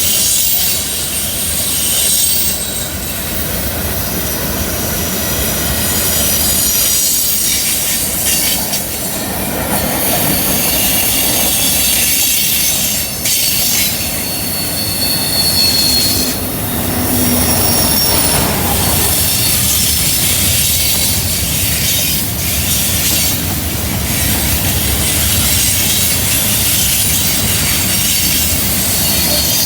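Train cars rolling through a curve with a steady low rumble. Their wheel flanges squeal against the rail in high whines that come and go.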